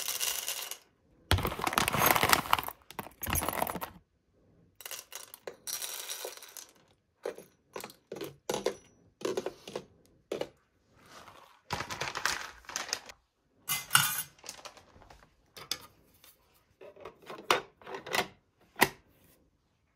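Coffee beans poured scoop by scoop into the bean hopper of a recolte fully automatic coffee maker, rattling in a string of short bursts with quiet gaps between. The hopper lid is shut near the end.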